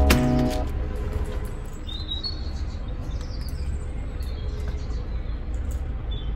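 Background music ends about half a second in, leaving a narrowboat's engine running steadily at low speed as the boat is steered into a lock, while small birds chirp a few times.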